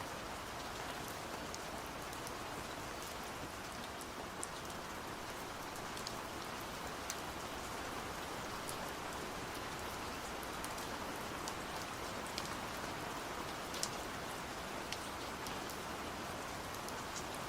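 Steady rain falling, a continuous hiss with scattered sharp drips and drop ticks on a surface.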